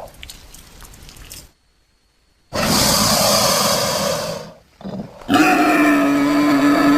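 Made-up creature calls for the prehistoric amphibian Eryops, mixed from crocodilian and wild boar recordings. After a faint crackle and a second of silence comes a loud, rough, hissing call of about two seconds. About five seconds in, a long, steady-pitched bellow begins and holds.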